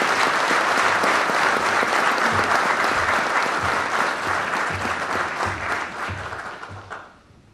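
Audience applauding after a speech, a dense clatter of many hands that fades away about seven seconds in.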